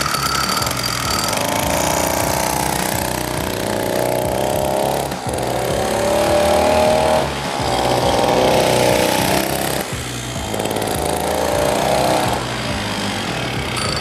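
Small 53cc Fuji two-stroke mini bike engine running, then revved up through four throttle runs as it is ridden, each one rising in pitch before dropping off.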